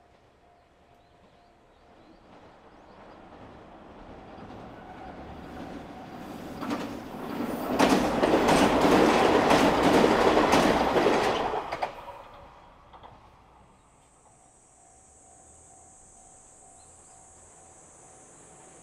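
JR Shikoku 2000 series diesel express train approaching, passing close by with its wheels clacking over the rail joints, and fading away. After it has gone, insects keep up a steady high-pitched buzz.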